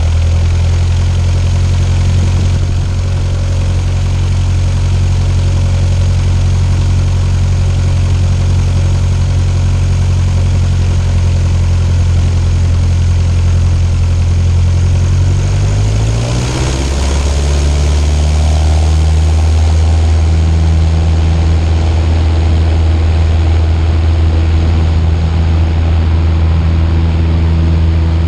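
Cessna 152's four-cylinder Lycoming O-235 engine and propeller running steadily while the aircraft taxis, heard from a camera on the outside of the fuselage. About sixteen seconds in the engine note drops to a lower pitch and holds there.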